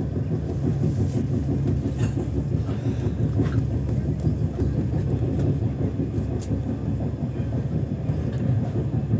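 LHB passenger coach running on rails, heard from inside the air-conditioned coach: a steady low rumble with a few faint clicks.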